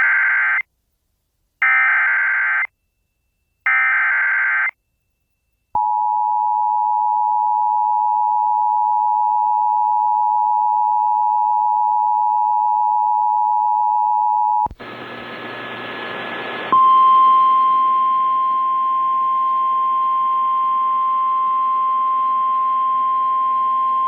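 Emergency Alert System SAME header: three buzzy data bursts about a second apart, followed by the two-tone EAS attention signal held steady for about nine seconds. It then cuts to about two seconds of radio static and a single steady alarm tone with hiss underneath, the NOAA Weather Radio warning tone.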